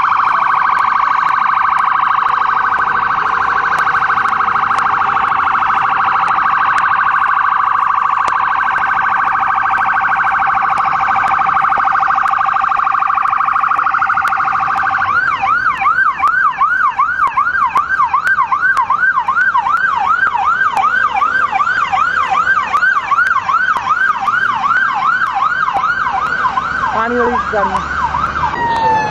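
Electronic siren sounding loudly: first a fast warbling tone, then from about halfway through a repeated yelp of quick rising sweeps, about three a second.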